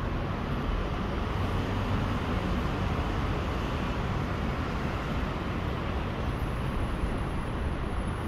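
Steady low rumble of background traffic noise in a concrete car park, with no distinct events.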